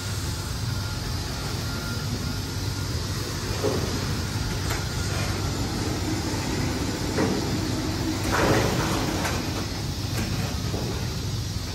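Overhead bridge crane carrying a heavy steel coil, its machinery running with a steady low hum. A few clanks and knocks sound through it, the loudest about eight and a half seconds in.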